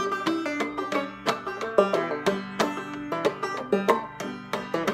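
Solo banjo playing an old-time tune: a quick, steady run of plucked notes that ring briefly.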